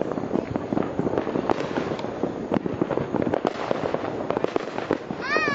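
Firecrackers going off in a dense crackle of rapid, overlapping pops. Near the end a short pitched tone slides up and down, then holds.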